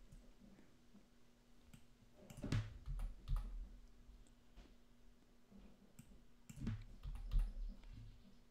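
A few faint computer mouse clicks, in two small clusters about two and a half seconds in and again near seven seconds.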